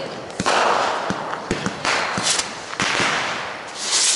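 Aerial fireworks going off: a rapid, irregular series of pops and bangs from bursting shells, mixed with bursts of hiss, the loudest hiss near the end.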